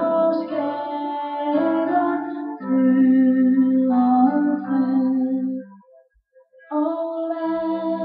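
Slow background music of long held notes, breaking off for a moment about six seconds in and then resuming.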